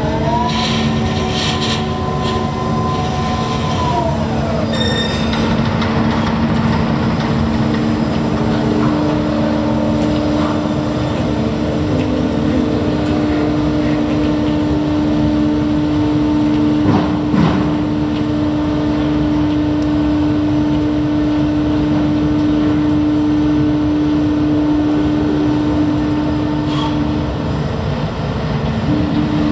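Ship-to-shore container gantry crane's hoist machinery humming steadily with a whine as the spreader lowers a container onto a ship's deck. A higher whine rises at the start and falls away about four seconds in, and there is a single knock partway through.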